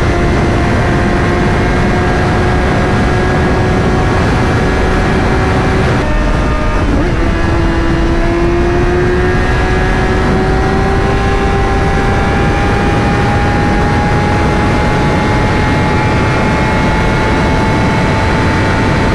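Sportbike engine running at road speed under heavy wind rush. Its steady note dips briefly about six seconds in, then climbs slowly as the bike speeds up.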